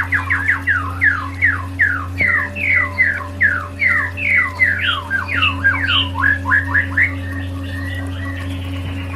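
Recorded songbird giving a fast run of downward-sweeping whistled notes, about three a second, over a steady low electronic drone. The bird stops about seven seconds in, leaving the drone.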